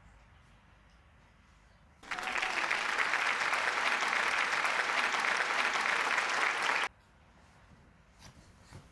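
Applause from a crowd, lasting about five seconds, starting suddenly about two seconds in and cutting off just as suddenly, after near silence.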